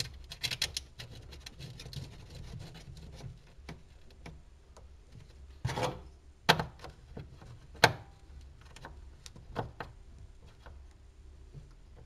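Hands fastening a ground wire to a bolt on a car's sheet-metal body: a quick run of small clicks in the first second, then faint rubbing with a few scattered sharp knocks against the metal panel.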